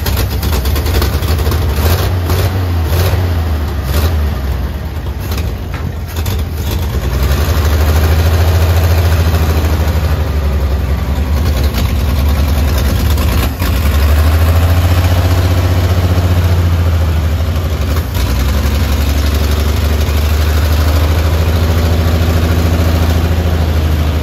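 1956 Chevrolet truck's 235 cubic-inch inline-six running at low speed while the truck creeps forward, its note gently rising and falling and getting louder about seven seconds in.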